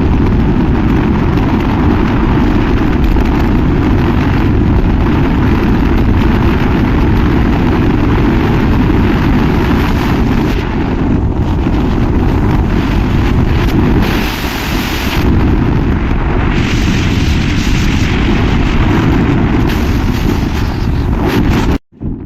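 Loud, steady wind buffeting on the microphone over a dense low rumble, cutting off abruptly near the end.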